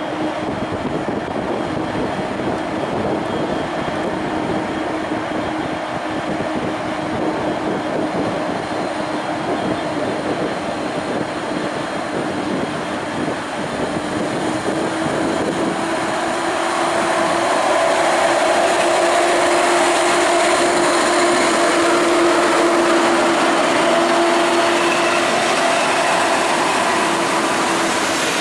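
An EP07 electric locomotive and its Intercity passenger coaches run along the platform: a steady rumble of wheels on rail with a constant hum, growing louder about two thirds of the way through as the coaches draw alongside.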